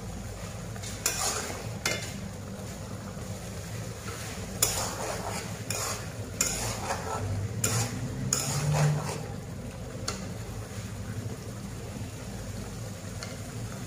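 A metal spatula scraping and stirring thick curry around an iron karahi: a series of uneven scraping strokes, then quieter near the end, over a low steady hum. The curry is stirred every so often so that it doesn't stick to the karahi while the last of its liquid cooks off.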